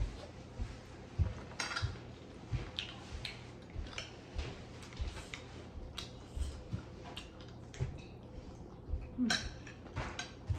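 Spoons clinking and scraping against plates and bowls while people eat, in irregular small clicks and knocks.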